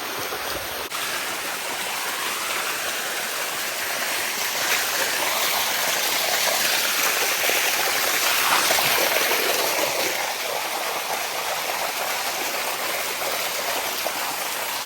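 Water rushing and splashing down the rocks of a shallow cascading waterfall, a steady rush that swells louder in the middle and eases off a little after.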